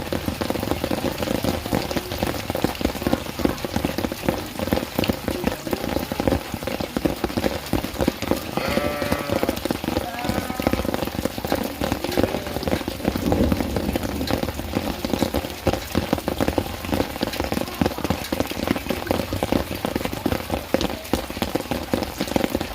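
Steady rain pattering and dripping on surfaces, with a goat bleating once about nine seconds in.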